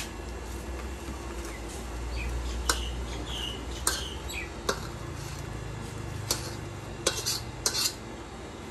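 Metal utensils clanking and scraping against a wok during stir-frying: about seven sharp, irregular clanks with short ringing, over a low rumble.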